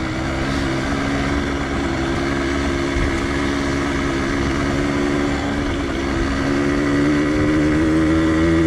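Yamaha DT 125X two-stroke single-cylinder engine running at steady part throttle while the motorcycle is ridden, over a steady rushing noise. The engine pitch climbs slightly near the end.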